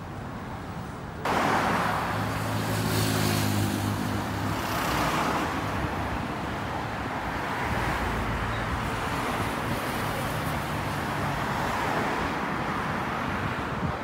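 Road traffic: cars going past one after another, starting suddenly about a second in, swelling and fading as each passes, with an engine note under it for a few seconds soon after.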